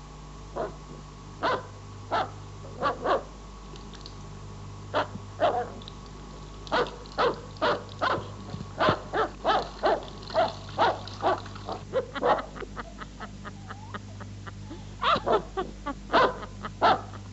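A dog barking in short, repeated barks and yaps, scattered at first, then in quick runs through the middle and again near the end, over a steady low hum.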